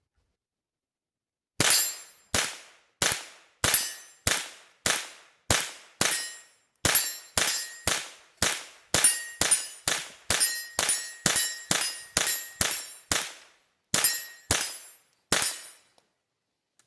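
An AR-15 with a CMMG .22LR conversion kit firing a magazine of CCI Mini-Mag high-velocity rounds in steady semi-automatic fire. There are about two dozen sharp shots, roughly two a second, each with a short ringing tail. They start about a second and a half in and stop near the end. The rifle cycles every round without a stoppage.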